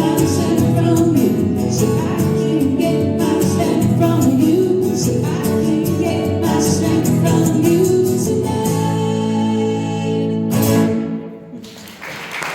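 Live song ending: guitar strumming with singing, settling into a held final chord that breaks off about eleven seconds in. Applause starts right at the end.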